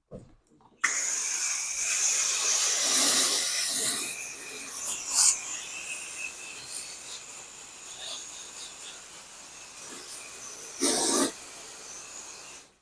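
Pressure washer wand spraying water: a steady hiss that starts about a second in, swells briefly near the end and cuts off sharply.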